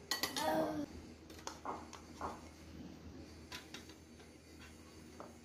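Spoons clinking and scraping on plates and a glass bowl during a meal, a few scattered clicks. A short burst of a person's voice comes in the first second.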